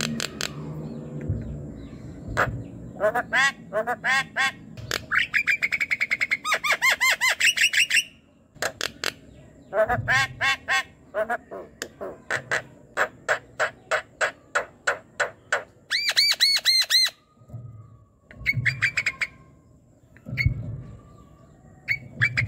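Javan myna (jalak kebo) singing: runs of rapid, repeated harsh notes lasting a few seconds each, with short pauses between runs.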